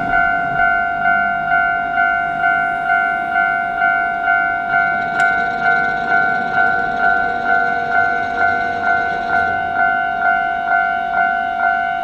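Japanese railway level-crossing alarm ringing: an electronic bell of two steady pitches, struck evenly about twice a second, warning that a train is approaching.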